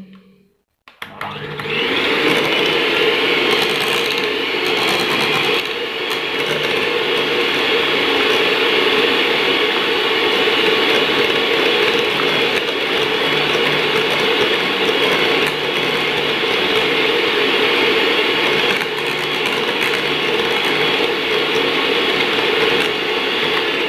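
Deuron electric hand mixer switching on about a second in and running steadily, its beaters churning cultured malai (set milk-cream yogurt) in a steel pan as it breaks into butter.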